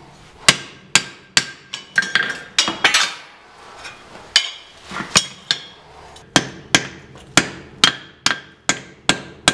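Hand hammer striking steel on an anvil, driving a chisel and knocking on a forge-welded billet to peel its steel can off: a run of sharp metallic blows about two to three a second, some with a brief ring, with a short pause a little past the middle.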